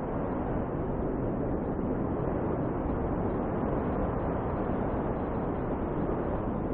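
Snowstorm wind blowing steadily: an even, low rushing noise with no distinct gusts or breaks.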